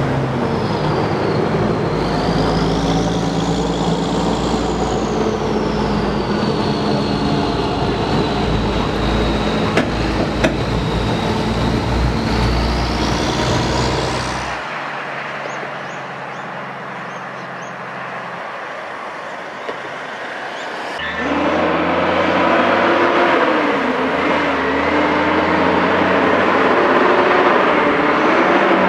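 Heavy-haulage diesel trucks hauling oversize loads past, engines running under load. In the first half a high whine rises and falls. The sound drops away for several seconds past the middle, then another truck's engine comes in, louder, its pitch wavering.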